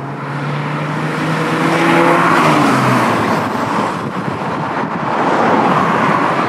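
Raffo Belva sports car on the move, its Ford Zetec engine holding a steady note for about three seconds before fading under road and wind rush. The rush swells twice.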